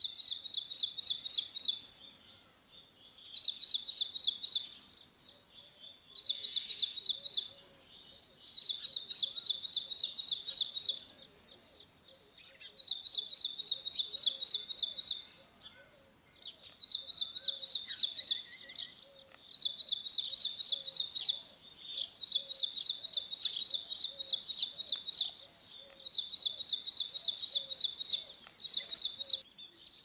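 A bird's rapid trill of evenly spaced high notes, given in phrases of one to two seconds and repeated about every two to three seconds, with faint lower chirps between.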